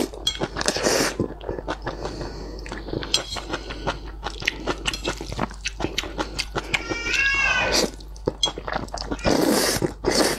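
A person slurping saucy noodles, with long noisy slurps at the start and again near the end and wet chewing and lip smacks in between. A short pitched squeal sounds a little after halfway.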